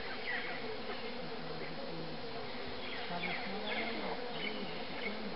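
Insects buzzing, a hum that wavers up and down in pitch.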